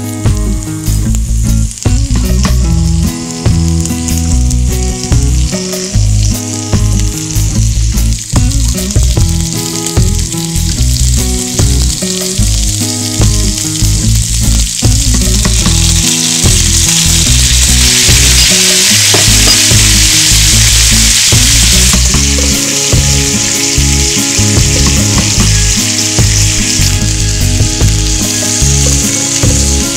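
Sizzling in a hot cast-iron skillet as mushroom sauce is poured over hamburger steaks, loudest a little past halfway and easing off after a few seconds. Background music plays throughout.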